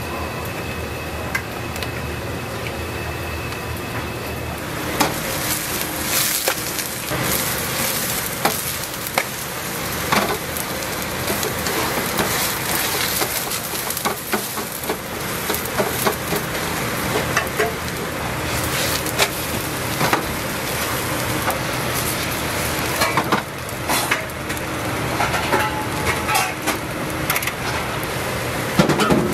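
A Korean vegetable pancake (jeon) sizzling as it fries in oil in a frying pan, with a spatula scraping and tapping against the pan. The sizzle starts about five seconds in, after a quieter steady hum.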